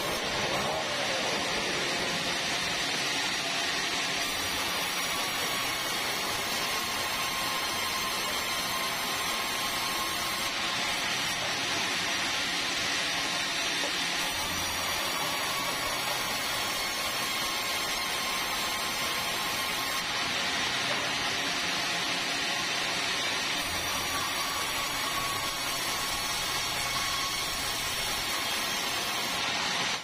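Sawmill band saw running steadily and cutting through red meranti timber, with a continuous hissing whine.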